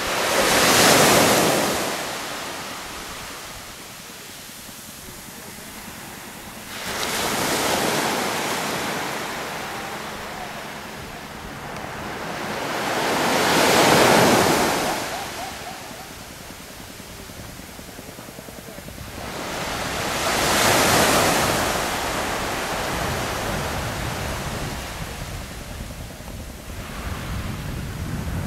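Small waves breaking and washing up a sandy beach, each surge rising to a loud rush of surf and fading again, about five times at intervals of six to seven seconds.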